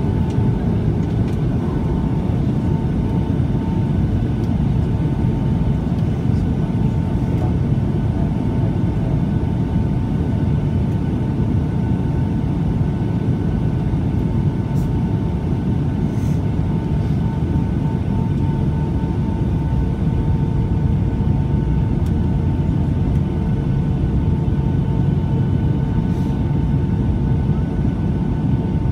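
Steady cabin noise inside a Boeing 757-200 in flight: an even roar of engines and airflow through the fuselage, with a faint steady whine above it.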